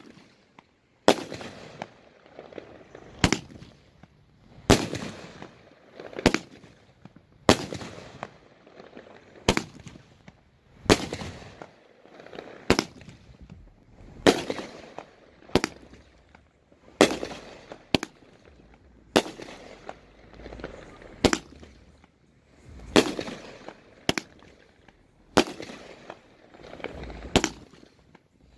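A 'Sammy the Bull' consumer firework cake from Black Market Fireworks firing shot after shot: a sharp bang roughly every second to second and a half, each trailing off in a short echo.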